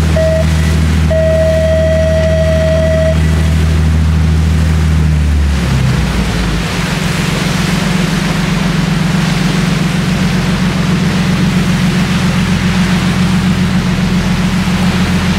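Sightseeing boat's engine running steadily under way, with water rushing past the hull. About five and a half seconds in, the engine note changes and the rushing of the wake gets stronger. Near the start a steady beep sounds, first short, then for about two seconds.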